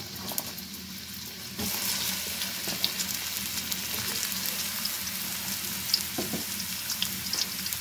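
Sliced onions frying in hot oil in a karai: a steady sizzle that grows louder about a second and a half in, with small clicks as the onions are stirred.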